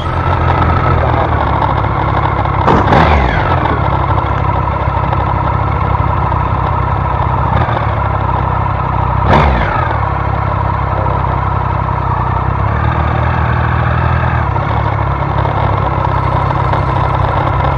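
Motorcycle engine idling steadily at close range. Two brief sweeps that fall in pitch cut through it, about three seconds in and again about nine seconds in.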